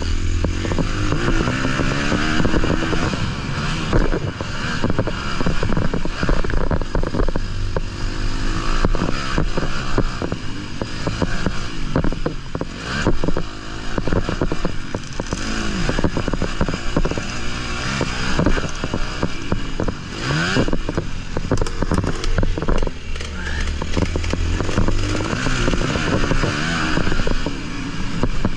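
Honda 250 motocross bike engine revving up and dropping back over and over as it is ridden hard around the track, heard from a camera on the bike, with many short knocks over the bumps.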